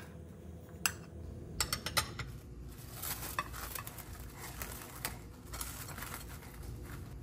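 A metal spoon clinks against a ceramic bowl a few times, then plastic cling film crinkles and crackles as it is pulled and stretched over a bowl.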